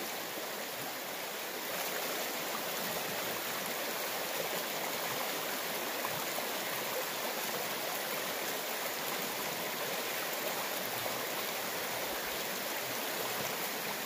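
Shallow river running steadily over a rocky bed: an even rush of flowing water.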